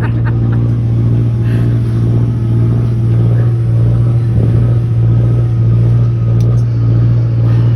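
Boat engine running steadily, a loud constant low hum.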